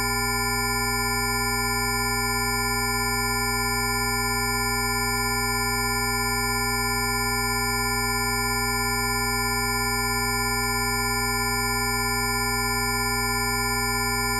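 Rife frequency tone track: several steady electronic sine tones sounding together at once, from a low hum up to a high whine, held without any change in pitch or loudness.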